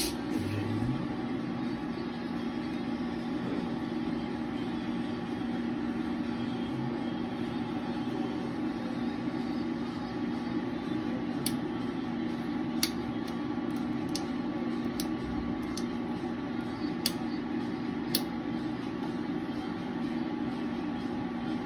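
Foxweld TIG 183 DC Pulse welding inverter switched on and idling, its cooling fan running with a steady hum and a low tone. Several sharp clicks come in the second half as its front-panel controls are worked.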